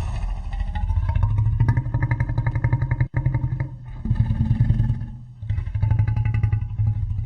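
Designed dinosaur vocalisation for a Vastatosaurus rex: a run of deep, pulsing growls broken by short pauses about three, four and five seconds in.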